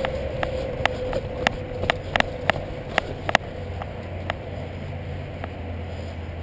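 Footsteps and gear on a dry dirt trail: sharp, irregular clicks and crunches, several close together between about one and three and a half seconds in, over steady noise from walking and wind on the microphone.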